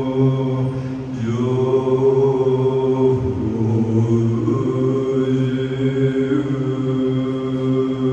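A man chanting a Buddhist invocation in a low voice, holding long tones that shift in pitch a few times, with a short break about a second in.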